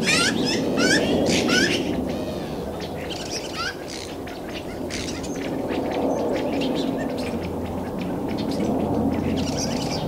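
A flock of small birds on the ground giving repeated short rising chirps and quick chattering calls, busiest in the first two seconds and again near the end. A steady low rumble runs underneath.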